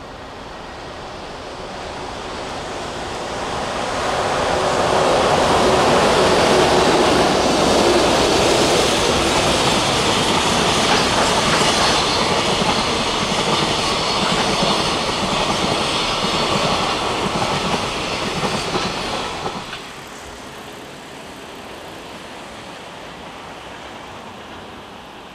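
Container freight train hauled by an electric locomotive passing close by, its wagon wheels clattering over the rail joints. The noise builds over the first few seconds and stays loud, then drops off abruptly about twenty seconds in to a quieter steady background noise.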